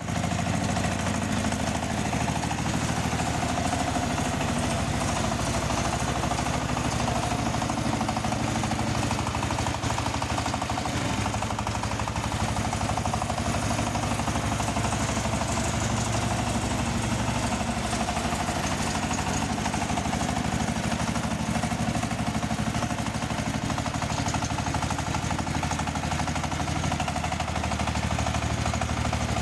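Engine of a mini rotary tiller tractor running steadily at an even speed.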